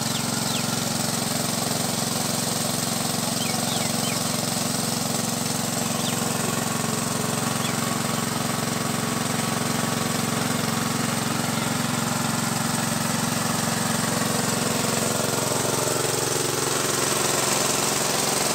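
Small engine running steadily at a constant speed, with an even hum and no change in pace.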